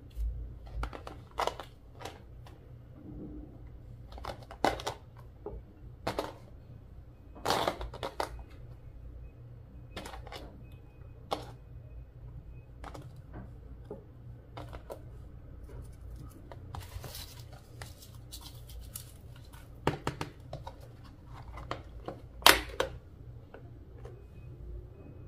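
Slime being worked by hand: irregular sticky pops and crackles as it is pressed, stretched and folded, a few sharp ones standing out, the loudest near the end.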